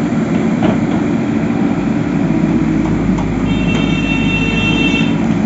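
Heavy machine engine, as of a backhoe loader, running steadily. A high whining tone joins it about three and a half seconds in and stops shortly before the end.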